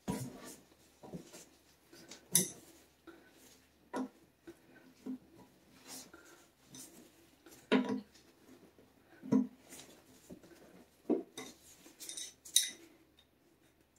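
Metal hand tools, an adjustable wrench among them, clinking and knocking against the water supply nut under a toilet tank while it is being disconnected: a dozen or so irregular sharp clicks.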